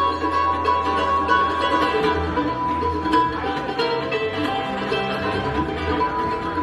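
Bluegrass-style string band playing an instrumental tune live: mandolin, fiddle, acoustic guitar and electric bass guitar, with a steady bass line under the melody.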